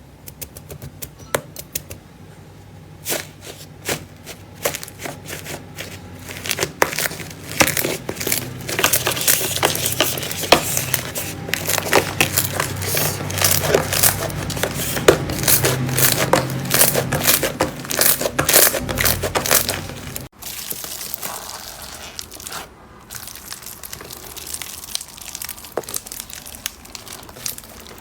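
Slime being squeezed and pressed, crackling and popping in dense runs of small clicks that build up and grow louder. About 20 seconds in it cuts to a quieter stretch of sparser pops.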